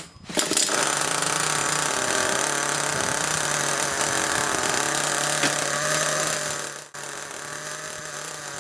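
A cordless drill spins the nitro engine of an HPI Trophy 4.6 truggy through its roto-start, a loud steady whine for about six seconds. The drill stops just before seven seconds, and the started nitro engine keeps running on its own, more quietly.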